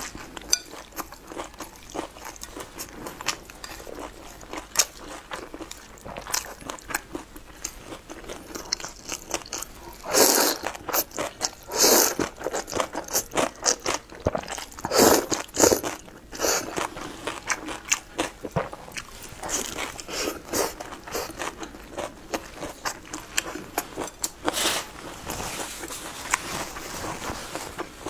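Close-miked eating: steady wet chewing and mouth clicks, with several loud slurps of wide flat noodles from a chili broth about a third of the way in, around the middle and near the end.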